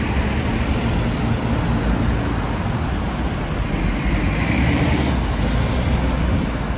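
Steady road traffic noise: a continuous low rumble of passing vehicles, with a brief swell of hiss a little past the middle.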